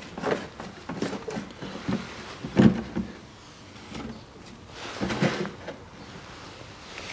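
A plastic canister and hose being handled and set on the floor: a few irregular knocks and rustles, the loudest about two and a half seconds in and another cluster about five seconds in.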